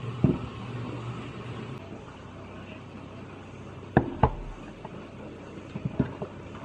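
Kitchen handling sounds over a steady low hum. There is a knock near the start as ingredients go into a saucepan. Later come sharp clicks of a clear plastic food tub being handled on the counter: two quick ones just past the middle and a few more near the end.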